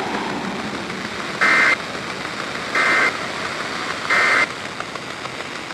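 Emergency Alert System end-of-message data bursts: three short, buzzy digital chirps about a second apart, signalling that the alert has ended. A steady hiss runs beneath them.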